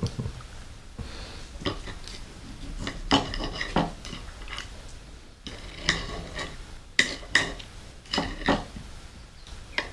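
Clinking and scraping of tableware in about six short bouts, each a sharp clatter with a brief ring.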